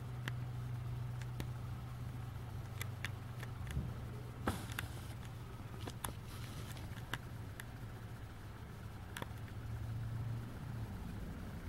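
A steady low mechanical hum, like an engine running, with scattered small clicks and taps over it; the hum stops shortly before the end.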